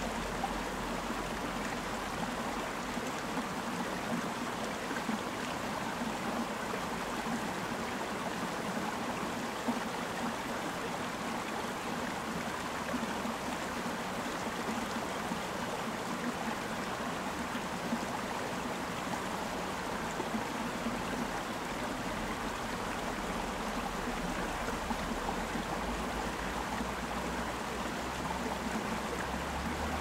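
Mountain stream running over rocks: a steady, even rush of flowing water.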